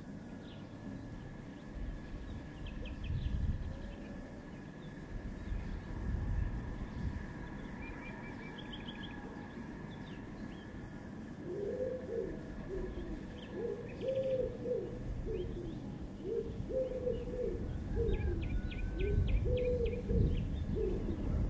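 Nature-sounds tape played back on a Unitra Uwertura M1417S reel-to-reel tape recorder: small birds chirping in short quick trills, and from about halfway a dove cooing, its phrase repeated over and over.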